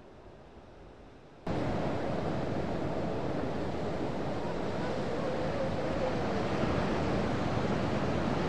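Sea surf breaking on a sandy beach: a steady loud rush of waves that cuts in suddenly about one and a half seconds in, after a faint quiet start.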